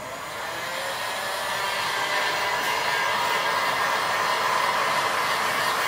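Electric heat gun running on its slow setting, its fan blowing steadily as it is passed over a fresh epoxy resin top coat to clear the surface bubbles. The blowing builds over the first couple of seconds, then holds steady.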